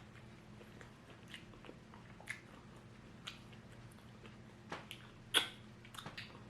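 Close mouth sounds of a person eating: scattered sharp, crunchy clicks of biting and chewing, the loudest a little past five seconds in.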